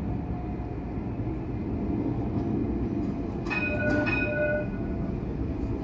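Light rail vehicle approaching with a steady low rumble, sounding its warning bell twice about three and a half seconds in.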